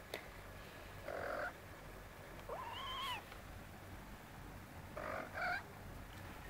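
Cats play-wrestling, giving three short calls. The middle call is a high meow that rises and then holds, about two and a half seconds in.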